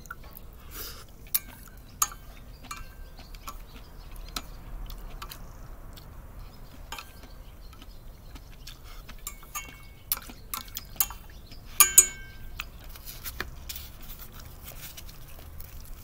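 Chopsticks clicking and clinking against a small metal saucepan of miso soup and a plastic natto pack: scattered light taps, some ringing briefly, with the loudest sharp clinks about twelve seconds in.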